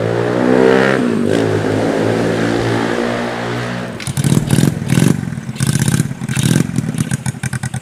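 Small scooter engine revving with its pitch rising and falling, then running rough and choppy about four seconds in, settling into a fast, even idle near the end.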